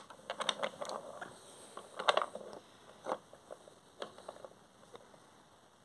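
Plastic toy pieces clicking and rattling as a toy engine is handled and pushed along by hand, in a few short clusters that die away toward the end.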